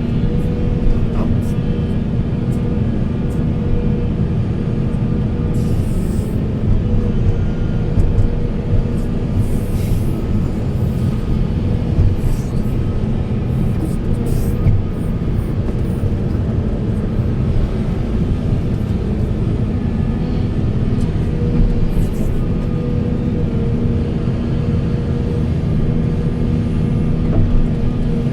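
Diesel engine of a Volvo 480 heavy excavator running steadily under load while digging and loading, a deep continuous rumble with a steady hum on top and a few short hisses.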